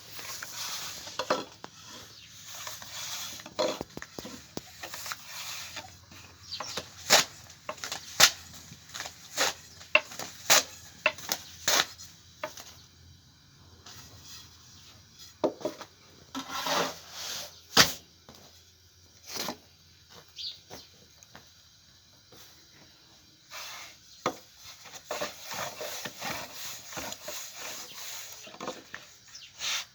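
Irregular sharp knocks and clicks with some rubbing and scraping, coming in clusters with quieter stretches in between, like hands handling wooden things during cooking work.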